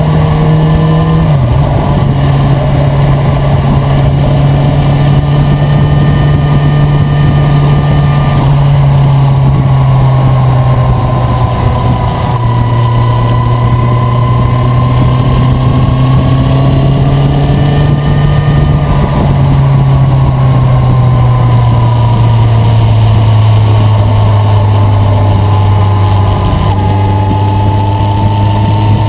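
Motorcycle engine running at a steady road speed, its pitch stepping down about a second and a half in and then drifting slowly down and up.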